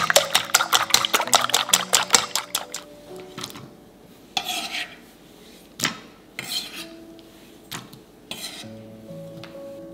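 Wooden chopsticks beating eggs in a stainless steel bowl, rapidly clicking against the metal, stopping about two and a half seconds in. A few separate soft swishes and taps follow, over quiet background music.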